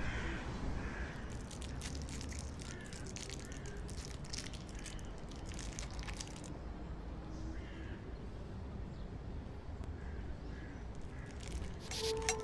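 Quiet outdoor ambience with birds calling faintly now and then, and a small wrapper crinkling in the hands for several seconds, stopping about six seconds in.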